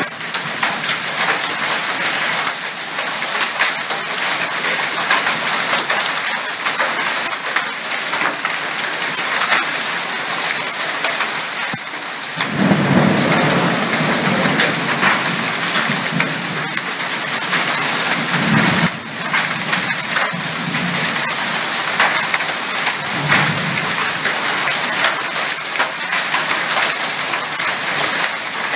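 Heavy rain pouring steadily in a thunderstorm. About halfway through, a long rumble of thunder rolls for several seconds, followed by two weaker rumbles.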